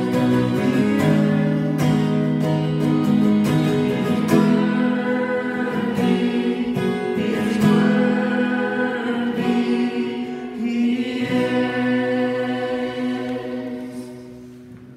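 Congregational worship song: a man and a woman singing with the congregation to a strummed acoustic guitar. The music dies away over the last few seconds.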